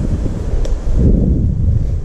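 Wind noise on a body-worn camera microphone while walking, a steady low rumble, with rustling of ferns and undergrowth underfoot.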